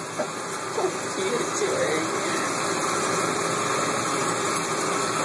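A steady rushing, fan-like noise that swells about a second in and then holds level, with a brief voice sound near the start.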